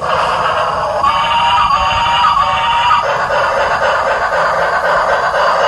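Battery-powered toy steam locomotive running on its plastic track, its built-in speaker playing an electronic tune with a steady chuffing hiss; a few short held notes sound from about a second in to about three seconds in.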